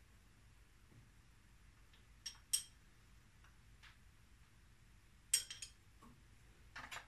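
Steel spanners clinking against the valve clearance adjusting bolt and locknut on a Lada's 1.6-litre engine as the valve clearance is set. A handful of short metallic clinks with a brief ring, the sharpest about two and a half and five and a half seconds in, and a small cluster near the end.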